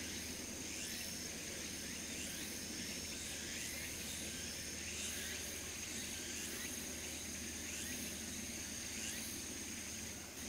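Insects calling from the grass: a steady high trill, with separate chirps recurring roughly once a second, over a steady low background hum.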